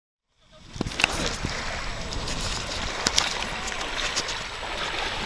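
Steady wind and shallow water washing at the shoreline, fading in from silence just after the start, with a few short sharp splashes and faint voices in the background.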